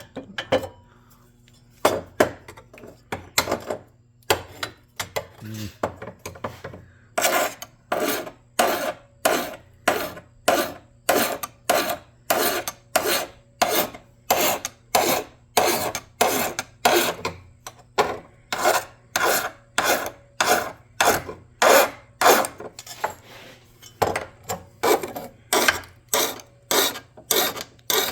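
Hand file rasping across a small part in push-only strokes, lifted on each return. A few scattered strokes in the first several seconds, then a steady rhythm of about two strokes a second.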